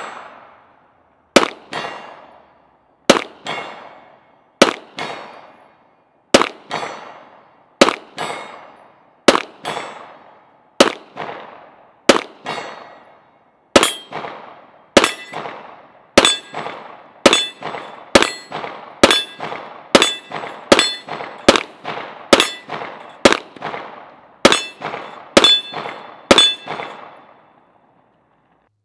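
Semi-automatic pistol fired shot by shot at steel targets, each shot followed by the clang and ring of hit steel. There are about twenty-two shots, about one every second and a half at first, then quicker, close to one a second, from about halfway through.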